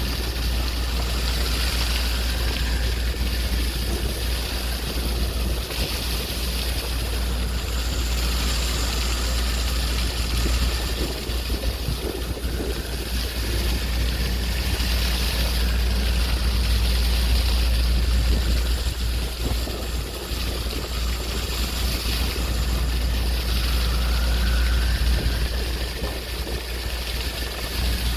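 Sea waves washing in an even hiss that swells and eases every few seconds, over a steady low rumble.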